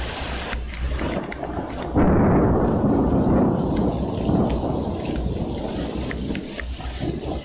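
Thunder in a Highveld thunderstorm over steady rain: about two seconds in a loud, deep rumble starts suddenly and slowly dies away over several seconds. Raindrops tick close by throughout.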